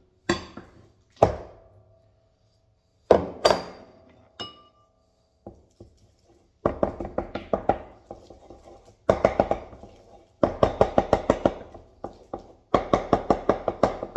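A few separate knocks of crockery, each with a short ringing tone. Then a wooden spoon beats mashed banana against a bowl in rapid knocking strokes, about five a second, in bursts of one to two seconds.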